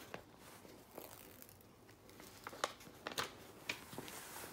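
Protective cover sheet of a diamond-painting canvas being peeled back off the sticky adhesive: faint crinkling with scattered sharp crackles, more of them in the second half.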